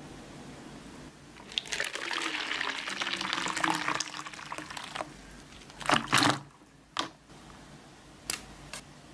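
Water pouring and splashing into a plastic bowl for about four seconds, then tapering off. A loud knock follows about six seconds in, then a few sharp clicks near the end as scissors snip the tip of a chocolate pen.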